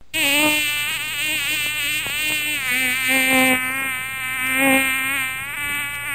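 A flying insect buzzing steadily without a break, its pitch wavering slowly up and down.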